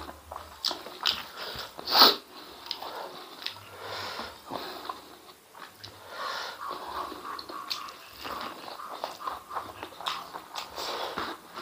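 A man chewing and biting mouthfuls of rice and spicy rica-style intestines, eaten by hand, with irregular wet clicks and smacks from his mouth. One sharp, loud sound about two seconds in stands out.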